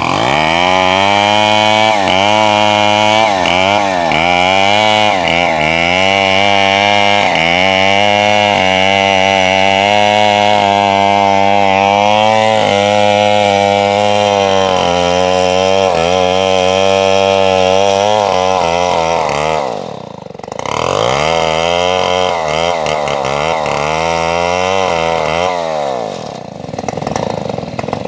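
Shinsaw two-stroke chainsaw running at high revs while ripping a large acacia log lengthwise, its engine pitch wavering as the chain bites into the wood. About two-thirds through, the revs fall sharply and then climb back into the cut, with a second dip near the end.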